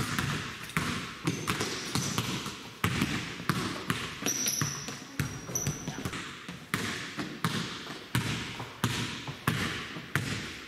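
Basketball dribbled on a hardwood gym floor: sharp bounces at a steady pace of somewhat under two a second, each echoing in the large gymnasium. A couple of brief high squeaks come about halfway through.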